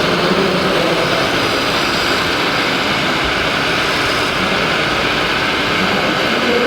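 Radio-controlled model construction machines running: a steady whirr of small electric motors and hydraulic pumps with a faint drifting whine, over a dense even hiss.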